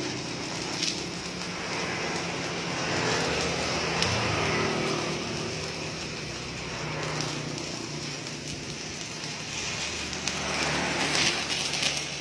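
Stick-welding arc from a Jasic ARC 250 inverter welder burning a 2.6 mm electrode at about 150 A, a steady crackling sizzle with sharper pops, louder near the end.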